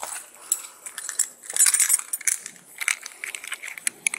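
Metal handcuffs being put on a person's wrists: a run of quick ratchet clicks and metallic clinks, with the jingle of a small handcuff key ring, busiest a little past the middle.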